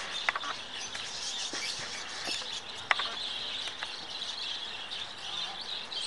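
Flock of lovebirds twittering in an aviary, a dense high chatter with a couple of sharp single chirps standing out.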